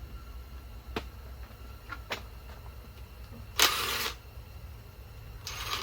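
Tools working on the bolts of an engine's front timing cover: a couple of light metallic clicks, then two short noisy bursts of about half a second each, one near the middle and one at the end.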